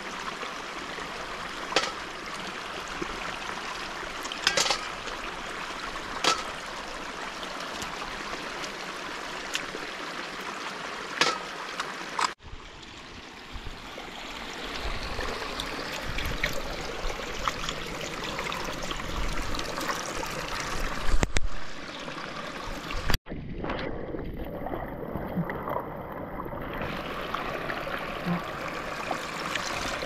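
Water flowing steadily in a canal, with occasional short clicks; the sound breaks off abruptly twice and resumes with a slightly different character.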